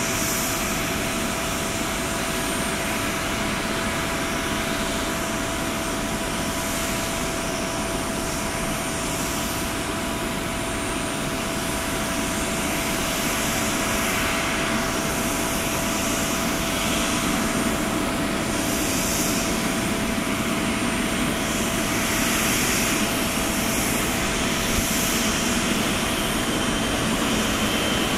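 Boeing 777-300ER's GE90 jet engines running at taxi power: a steady jet whine and rumble that grows a little louder as the airliner taxis closer.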